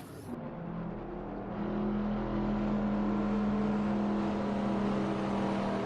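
Race-car engine sound: a steady droning engine note that swells over the first couple of seconds and then holds.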